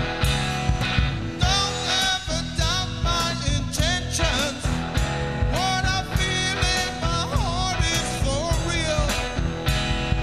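Live rock and roll band: a man singing lead over a hollow-body electric guitar and a drum kit keeping a steady beat. The voice comes in about a second and a half in.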